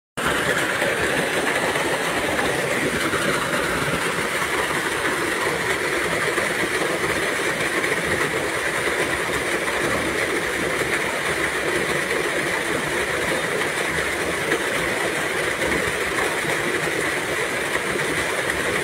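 Small waterfall: muddy stream water pouring steadily over a rock lip and splashing into a pool.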